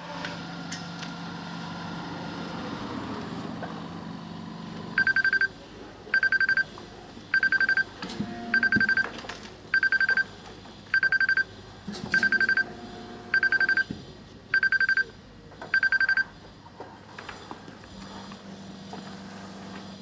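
Dozer engine running with a steady hum, then a Safety Shield in-cab proximity alarm sounds ten short, high beeps about a second apart, starting about five seconds in. The alarm warns the operator that a person is inside the detection zone around the machine.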